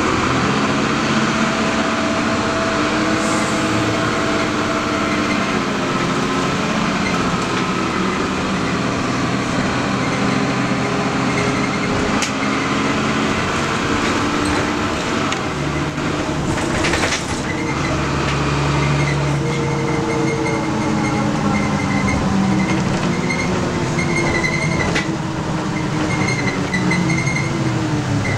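Interior of a 1997 Nova Bus LFS city bus under way: the diesel engine and drivetrain drone steadily under road noise, the engine pitch climbing and dropping several times as the bus accelerates and shifts gears. A brief knock comes about 17 seconds in.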